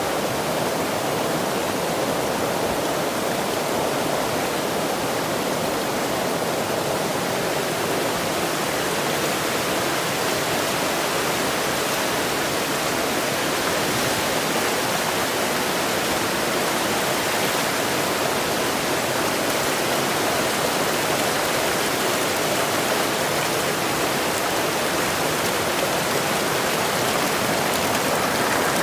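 Fast-flowing stream rushing steadily, its white water churning around a turning Archimedes screw.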